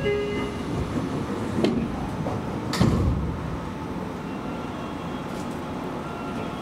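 Seibu Railway commuter train heard from on board: a steady rumble with a few brief tones at the very start and two sharp clunks, about a second and a half in and near three seconds.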